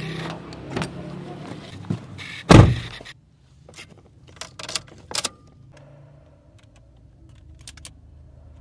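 A car door being unlocked with a key, then shut with a heavy thunk about two and a half seconds in, after which the outside noise drops away; then light clicks and key jangling as the key goes into the ignition, and a few small clicks from the dashboard fan knob near the end.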